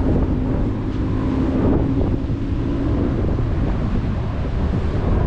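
Wind buffeting the microphone, with sea waves washing against the rocks underneath, and a faint steady hum that fades out about three seconds in.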